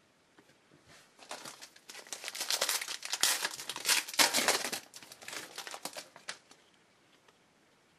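Trading-card pack's foil wrapper being crinkled and crumpled in the hand, a dense crackling that builds over about a second, peaks mid-way and dies away after about five seconds.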